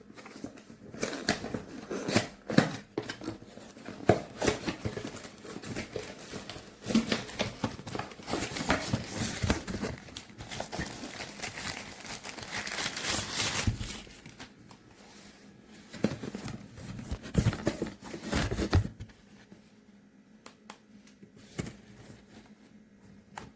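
Handling noises: crinkling and rustling with many irregular small clicks and knocks for most of the first nineteen seconds, then only a few scattered clicks. The pump's motor is not running.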